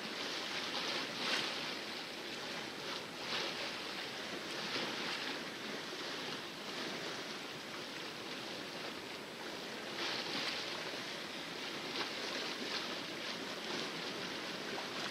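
Water splashing and rushing along the hull of a sailboat under sail in calm seas: a steady wash with irregular louder splashes every few seconds.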